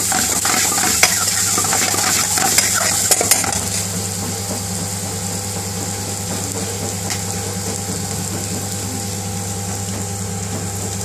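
Chopped onions and peppers frying in hot oil in a frying pan, a metal spoon scraping and clinking against the pan as they are stirred with curry powder for the first three or four seconds, then steady sizzling as the pan is left to fry.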